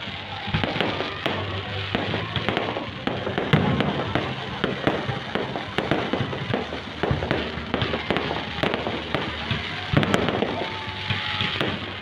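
Fireworks going off in rapid succession, a dense run of bangs and crackling bursts, loudest about four seconds in and again about ten seconds in.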